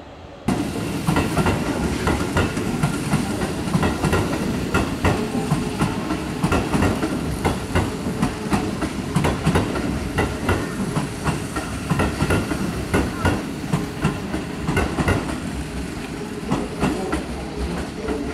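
Keihan electric commuter train running along the platform, its wheels clacking over rail joints with a continuous rumble. It starts abruptly about half a second in.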